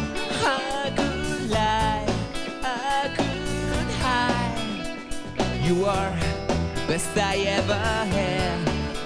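Live rock band playing: a lead singer over electric guitars, bass and a drum kit, with cymbals struck on a steady beat.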